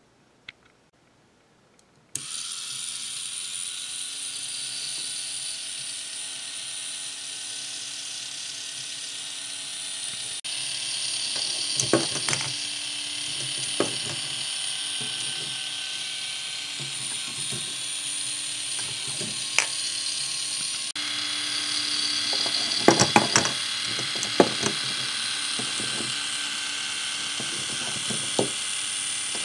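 K'NEX motor driving a plastic wheel lift, starting about two seconds in: a steady motor whine with the chatter of plastic gears. Sharp plastic clicks and clacks of the balls being carried through the lift come now and then, more often near the end.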